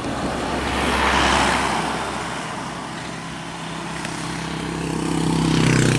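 Road traffic passing close by. One vehicle sweeps past with a rush of tyre and wind noise about a second in, then another vehicle's engine grows louder as it approaches near the end.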